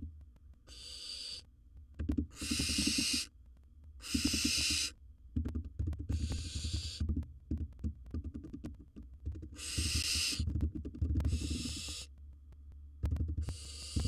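Barn owl hissing calls, about six harsh breathy hisses each lasting roughly a second, with a pause of several seconds in the middle. Low scraping and knocking sounds run underneath.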